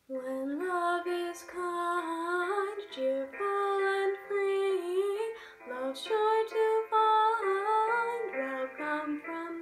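A teenage girl singing a slow, lyrical solo song, holding long notes with vibrato over a soft piano accompaniment.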